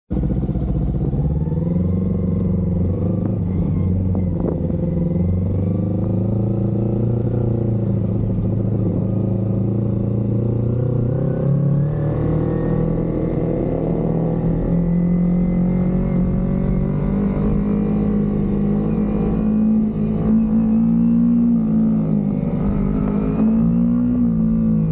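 Motorcycle engine running as the bike rides off and cruises, its note rising and falling several times with throttle and gear changes.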